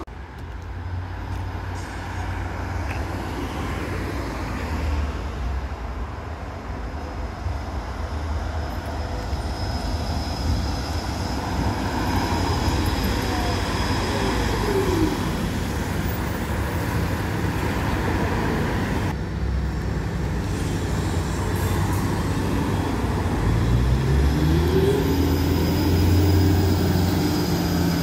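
Trolleybuses in city street traffic, with a steady rumble of tyres and road noise. Near the end one pulls away, and its electric traction drive whines in several tones that rise in pitch as it speeds up.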